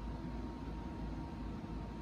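Steady low rumble and hiss of background noise, with a faint thin steady tone above it; nothing distinct stands out.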